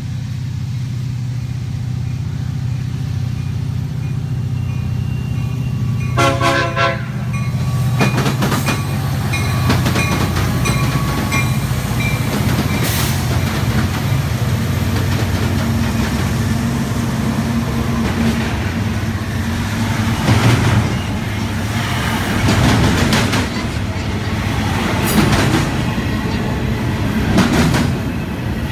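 Union Pacific diesel locomotives rumble as they approach and pass, with a short horn blast about six seconds in. Double-stack container well cars follow, their wheels clanking and knocking over the rail joints.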